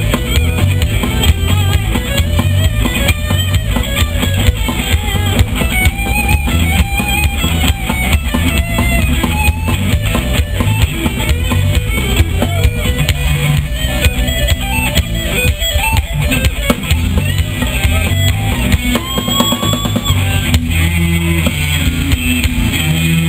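A live rock band playing loudly: electric guitar over a drum kit with a steady bass drum.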